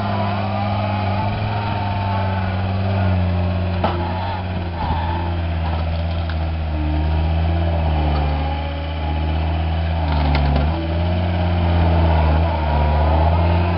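John Deere 329D compact track loader's diesel engine running hard under heavy load as its tree-puller attachment pulls a tree from the ground, a steady drone with a higher whine that wavers in pitch and swells in loudness.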